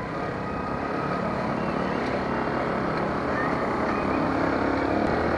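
Motorcycle engine running steadily at riding speed, with rushing road and wind noise, heard from the rider's own bike; the engine note slowly gets a little louder.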